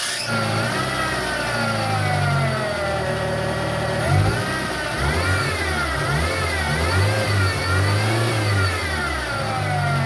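Fiat Palio Fiasa 1.0 engine running and revving, with a squeal from the alternator belt drive whose pitch rises and falls with the revs and wobbles repeatedly in the middle. The owner takes this noise to be typical of a worn auxiliary belt or a belt pulley bearing; a new belt cured it.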